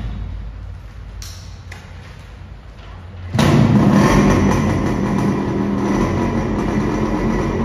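Yamaha RX100 two-stroke motorcycle engine running low, then suddenly much louder about three seconds in, and holding there.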